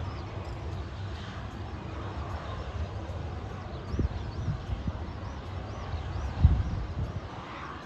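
Wind buffeting the microphone with uneven low rumbling, and a small bird chirping repeatedly in quick high notes from about three seconds in.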